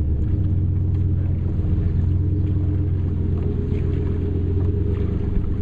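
A boat motor running steadily, a low droning hum that holds one pitch throughout.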